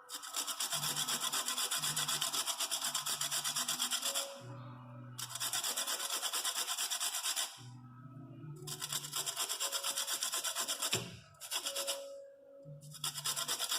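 Something being grated on a hand grater: runs of quick, even rasping strokes, each a few seconds long, with short pauses between.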